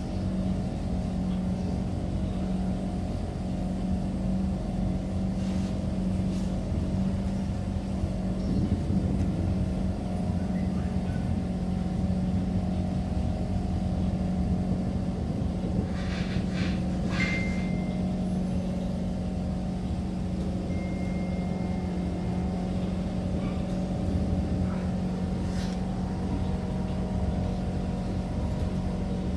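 Inside the cabin of a C151 MRT train running along the line: a steady low hum and rumble with several held tones, and a few faint clicks and short high squeals a little past the middle.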